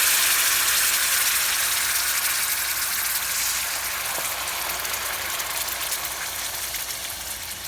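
Curry spices in hot oil sizzling as coconut milk is poured into the pan: a loud, even hiss that slowly dies down as the liquid cools the pan.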